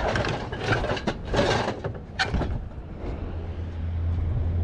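Knocks and scrapes of a plastic drum and wooden crate slats being handled in a trailer, several sharp strokes in the first two and a half seconds. A steady low hum comes in about three seconds in.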